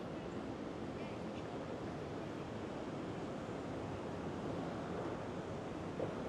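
Steady outdoor city ambience at night: an even rushing noise with no distinct events.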